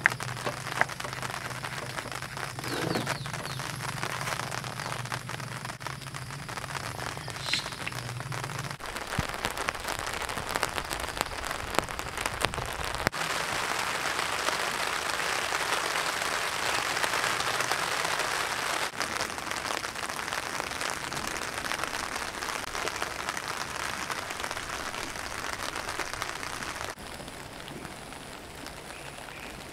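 Steady rain falling, with many small drop hits, and a low hum underneath for the first nine seconds or so.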